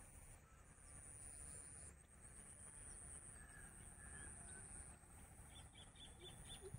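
Faint outdoor ambience: low wind rumble on the microphone, a steady thin high whine, and distant birds calling. Near the end a bird gives a quick run of short repeated notes.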